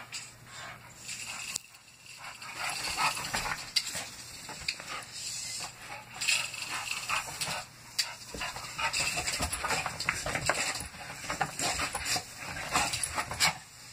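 A bulldog's noisy breathing and dog sounds in irregular short bursts as it plays with a tape measure.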